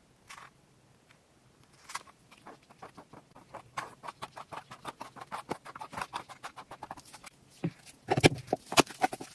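Thick, sticky lip gloss base pouring from a bowl into an 8-ounce jar, making a quick run of small wet clicks and smacks, several a second, as the gel folds and drops in. Near the end a few louder knocks as the bowl is handled and set down.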